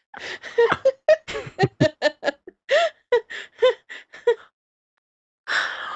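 People laughing and giggling in quick, high-pitched bursts for about four seconds.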